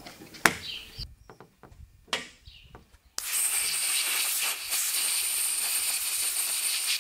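A compressed-air blow gun hisses steadily from about three seconds in, blowing scraped-off verdigris and grit out of a corroded trolling-motor power socket. Before it starts there are a few sharp clicks and scrapes.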